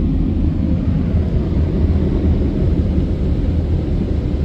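The dryer blowers of a Mark VII Aquajet GT-300 in-bay automatic car wash, running steadily with a low rushing rumble as they dry the car.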